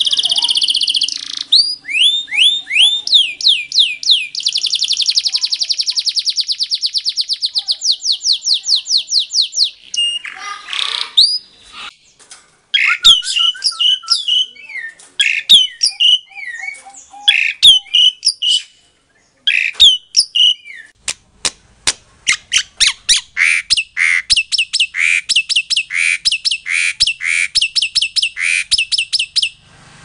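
Songbird song: a domestic canary singing in fast rolled trills and runs of quick repeated sweeping notes, then a stretch of varied sharp chirps and calls, and near the end a long series of evenly repeated notes.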